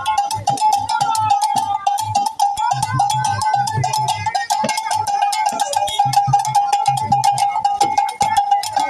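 Rapid, continuous metallic striking over a steady ringing tone, the beating of a bell-like percussion instrument in a walking procession.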